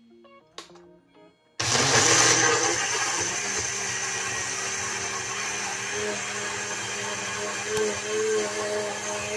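Countertop blender switched on suddenly about a second and a half in, then running steadily and loudly as it blends a liquid batter of cookies, eggs, sugar and milk. Faint background music before it starts.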